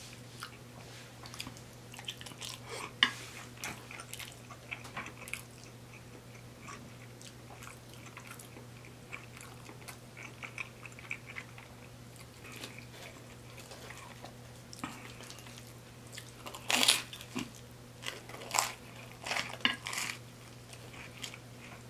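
Close-miked eating sounds: quiet chewing of cheesy spaghetti with small wet mouth clicks, then louder crunchy bites into toasted garlic bread about three-quarters of the way through.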